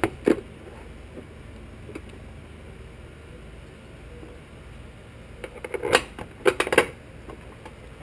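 Sharp clicks and knocks of parts and tools being handled while fitting a car's cold air intake. There are two near the start, then a quick cluster of clicks about six to seven seconds in, over a faint steady hum.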